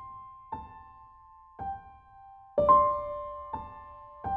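Slow, gentle piano music: single notes struck about once a second, each ringing out and fading, growing louder with a lower, fuller note added about two-thirds of the way through.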